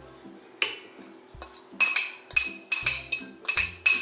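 A metal spoon scraping chopped boiled eggs off a plate and knocking against a stainless steel mixing bowl: a series of clinks with a ringing note from the bowl, coming thicker in the second half.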